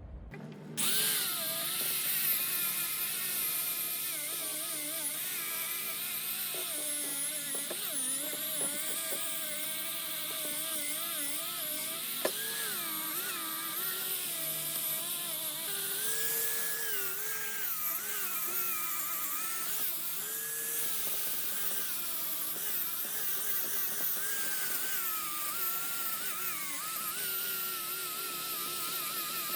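Small electric rotary power tool running steadily, its pitch wavering up and down as it is pressed into the work. It starts about a second in.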